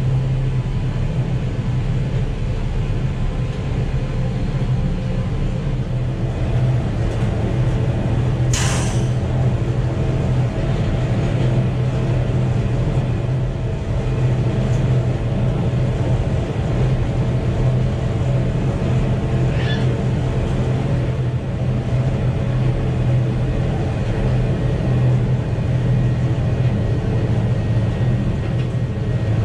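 Steady low drone of a running vehicle, with a short sharp hiss about eight or nine seconds in.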